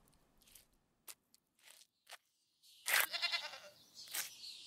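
A few light footsteps, then a sheep's bleat about three seconds in: one quavering call, under a second long, standing for the ram caught in the briars.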